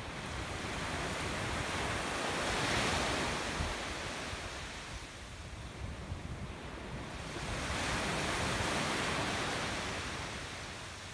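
Sea waves washing in and drawing back, in two slow surges that swell and fade, loudest about three seconds in and again around eight seconds.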